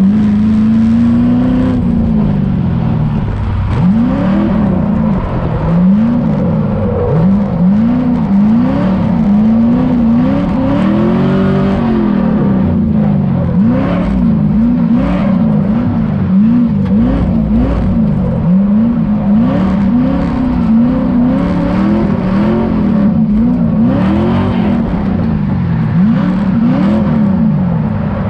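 The 5.3-litre LS V8 (LM7) in a Mazda FC RX7 revving up and down over and over under throttle while drifting, heard from inside the cabin. The pitch rises and falls about once a second.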